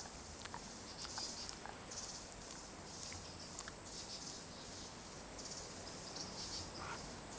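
Rainforest insects calling: a steady high-pitched drone with pulsing chirps over it, and scattered faint clicks.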